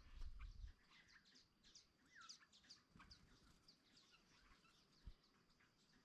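Faint birds chirping: many quick, short notes that sweep up and down. A low rumble at the very start and a single soft thump about five seconds in.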